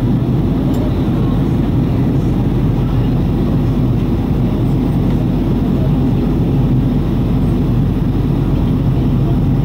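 Jet airliner cabin noise from a window seat over the wing: a steady low drone of engines and rushing airflow, with no change.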